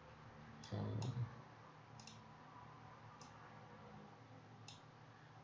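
Computer mouse clicking: about five short, sparse clicks about a second apart, with a brief low thud around the first clicks.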